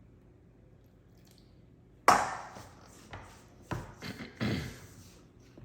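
A run of knocks on a hard kitchen surface while dough is being worked by hand: one sharp, loud knock with a brief ring about two seconds in, then four or five softer knocks.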